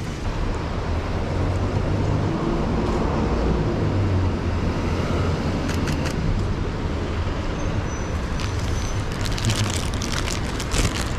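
City traffic on wet streets: a steady rumble of passing cars and tyre hiss. Near the end comes a run of sharp rustling clicks from handling a camera wrapped in a plastic rain cover.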